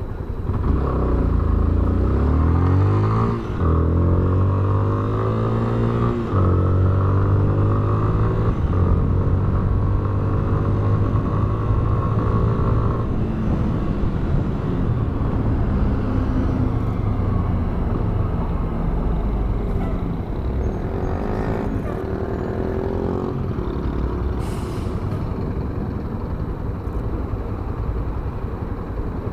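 Yamaha Fazer 250 BlueFlex single-cylinder motorcycle engine accelerating through the gears: the pitch rises, drops at a shift about three seconds in and again about six seconds in, then holds fairly steady. After about thirteen seconds it eases off and runs more quietly under road noise.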